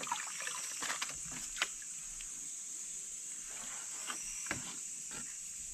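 Steady high-pitched chorus of night insects, with a few small splashes and knocks as hands work through roots and stones in shallow stream water.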